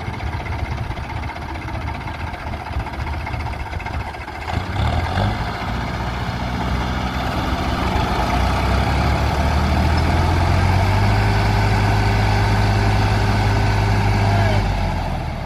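Tractor diesel engines working hard under heavy pulling load in a tractor tug-of-war. The engine note strengthens about four seconds in, is loudest and steadiest through the second half, then eases off just before the end.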